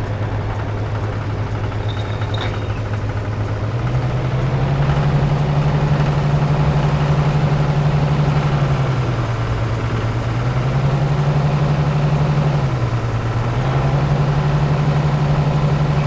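Engine sound for a toy JCB backhoe loader: a steady, loud diesel-like hum that steps up in pitch about four seconds in, then dips and rises again twice.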